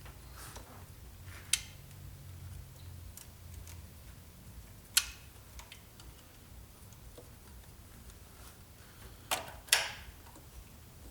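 Sharp clicks and taps of tools and parts being handled on an engine during timing chain work: a single click, another a few seconds later, then two in quick succession near the end, over a low steady hum.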